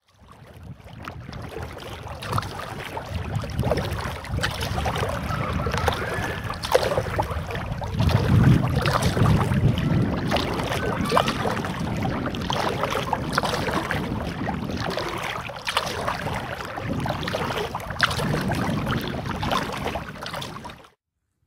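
Kayak paddling: water splashing and dripping from the paddle strokes, with wind noise on the microphone. It fades in at the start and cuts off just before the end.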